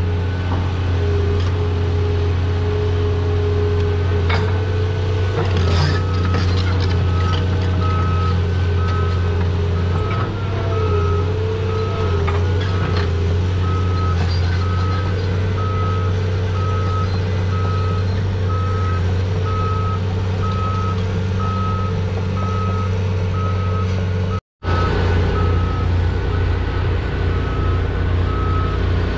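Caterpillar 330 hydraulic excavator's diesel engine running steadily, with a wavering whine over it and a few sharp clanks in the first half. A backup alarm starts beeping at an even pace a few seconds in and keeps going. The sound drops out for an instant near the end.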